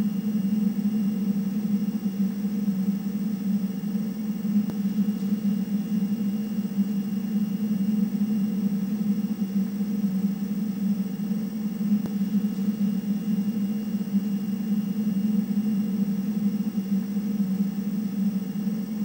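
Steady low electronic hum of spacecraft-interior ambience, unchanging throughout, with a faint high whine above it.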